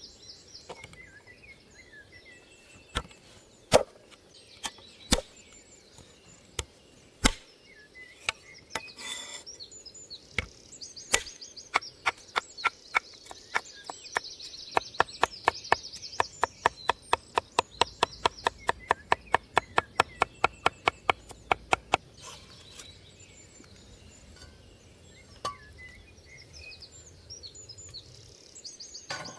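A knife chopping food on a cutting board: a few single cuts at first, then a fast, even run of about four chops a second for some ten seconds, before it stops and scattered single cuts resume near the end.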